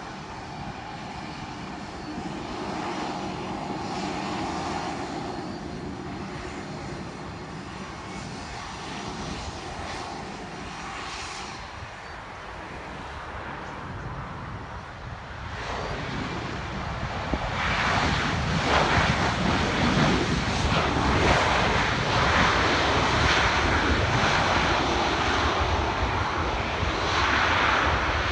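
Twin CFM56 turbofan engines of an Airbus A320-211 running at low approach power during landing, then, about sixteen seconds in, a louder, rougher roar that builds and holds: reverse thrust on the landing rollout.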